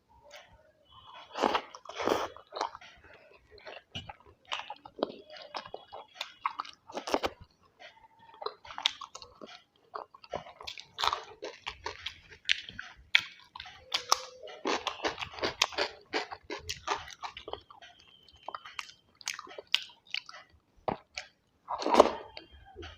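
Close-up eating sounds: one person chewing and biting food, with wet smacks and crunchy bites in an irregular run of short clicks. The loudest bites come about two seconds in and near the end.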